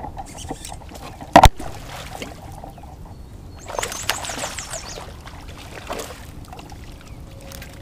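A hooked bass thrashing and splashing at the surface beside a kayak as it is reeled in, one longer splash about four seconds in and a smaller one near six seconds. About a second and a half in, a single sharp knock is the loudest sound.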